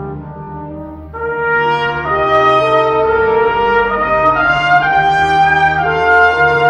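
Brass ensemble music: several sustained brass lines moving together in slow held notes, swelling louder about a second in.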